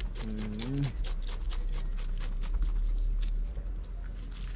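Kitchen knife cutting the rind off a whole pineapple: a quick, uneven run of short slicing strokes, several a second.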